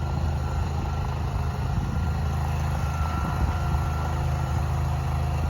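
Engine of a tracked shed-moving machine running steadily as it pulls a barn into place.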